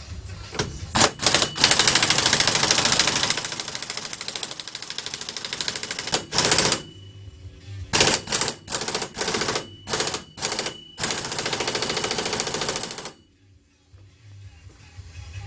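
Impact wrench hammering in bursts, tightening a fastener during the rear wheel bearing reassembly. It gives a few short bursts, then longer runs of several seconds, and stops near the end.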